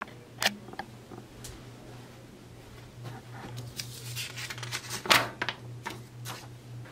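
Paper handling: scattered clicks and rustles, loudest about five seconds in as a paper sheet is pulled off a pin on the wall, over a low steady hum.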